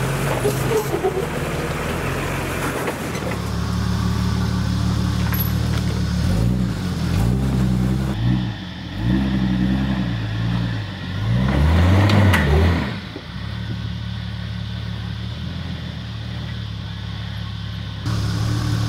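Jeep Wrangler TJ's engine working up a rock step, blipped up and down several times in quick surges, loudest about twelve seconds in, then settling back to a steady run. The first few seconds carry a Nissan Patrol GU ute's engine crawling over rocks.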